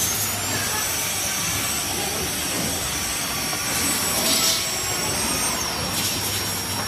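Cordless stick vacuum cleaner running, its motor giving a steady rushing noise with a high-pitched whine. The whine rises in the first second and drops briefly about five and a half seconds in.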